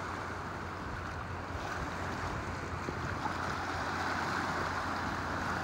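Steady wash of small lake waves breaking and lapping along the shore, with wind on the microphone.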